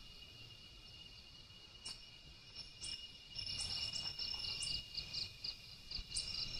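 Faint night insects: crickets keeping up a steady high trill, joined about halfway through by a quicker chirping at about four chirps a second.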